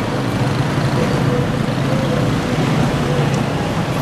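Street traffic: cars driving past close by over a steady low engine hum.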